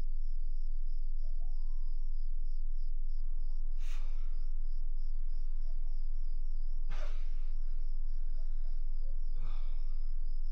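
Night ambience of crickets chirping in a steady pulsing trill over a low steady hum, with a sleeping man's heavy breaths three times, about three seconds apart.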